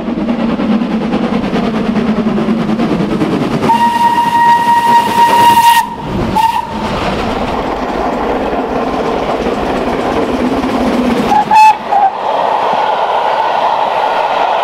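Steam locomotive running with a steady rumble. Its whistle gives one long blast about four seconds in, a brief toot soon after, and two short toots near twelve seconds.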